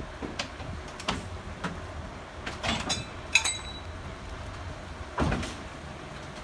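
Outdoor ambience with a steady low hum, scattered knocks and clanks, one brief high squeak about a third of the way in, and a louder thump about five seconds in.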